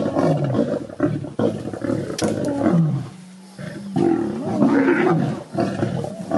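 A pride of lions, lionesses and cubs, growling over a kill as they feed side by side, in overlapping calls that rise and fall in pitch; the growling squabbles are competition for the meat. There is a brief lull about halfway through.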